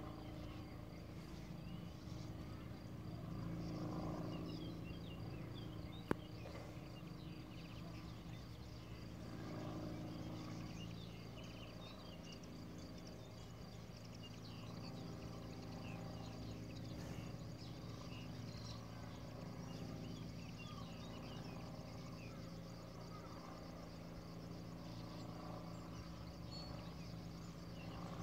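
Sand martins and European bee-eaters calling at their nesting bank: many short chirps and twitters throughout, over a steady low hum. One sharp click about six seconds in.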